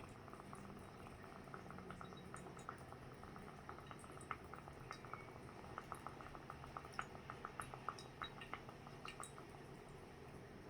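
Dry ice bubbling in water: a faint run of rapid small pops that grows busiest in the middle and thins out near the end.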